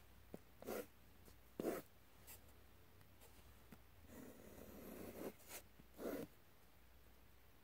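Pen scratching across drawing paper: a few short strokes, then a longer stroke about four seconds in.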